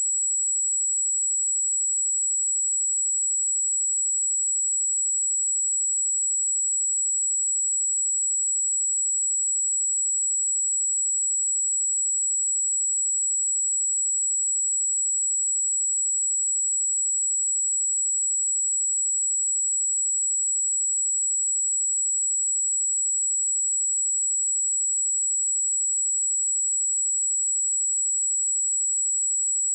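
A pure 7764 Hz sine-wave test tone, a single steady high-pitched whistle held at constant level without change.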